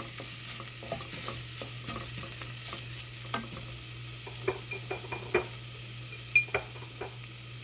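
Spoon stirring a spice masala with chopped ginger frying in oil in a pan, with a steady sizzle. Sharp clicks of the spoon against the pan come in a short run about halfway through.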